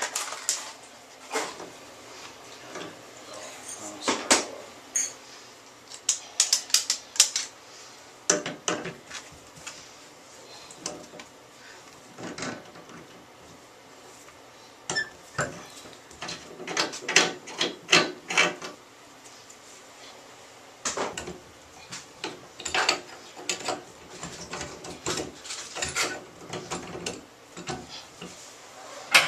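Metal tools clicking, clinking and knocking against the valve stem and fittings of an old tub faucet as it is worked on. The hits come irregularly, some in quick clusters.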